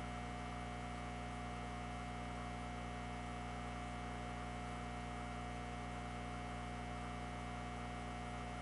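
Steady electrical mains hum, with a thin higher tone over it and a faint hiss; it does not change.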